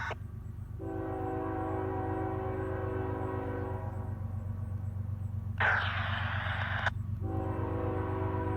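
Leading GE ES44AC diesel locomotive's multi-tone air horn sounding for the grade crossing: one long chord, a short harsh burst, then another long chord starting near the end. A steady low rumble of the approaching train lies underneath.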